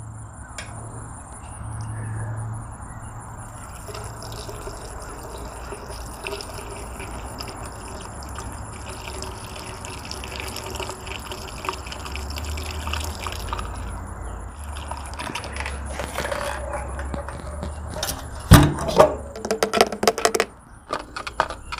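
Gasoline pouring from a gas can through a funnel into a lawn mower's empty fuel tank, a steady trickle. Near the end, a sharp knock and a few clatters as the can is set down and the funnel is handled.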